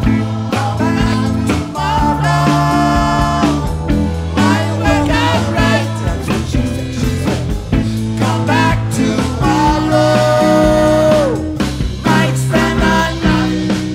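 A live funk-ska band plays an instrumental passage on drums, bass, guitars and keyboards. A lead melody slides between notes and holds one long note that drops away about eleven seconds in.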